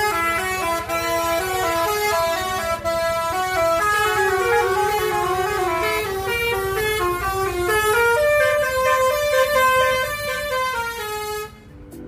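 Bus telolet horn, a set of electric air trumpets, playing a quick tune of short stepped notes that stops near the end, over the low rumble of the bus engine.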